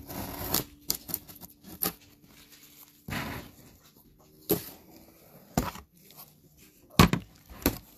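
Utility knife slicing through packing tape on a cardboard box, in two short scraping strokes, followed by several sharp knocks and taps as the cardboard box is handled.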